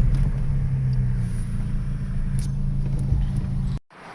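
Chevrolet Astra 1.8 four-cylinder engine running steadily at low speed as the car is driven, after a faulty injector was replaced. The sound cuts off abruptly near the end.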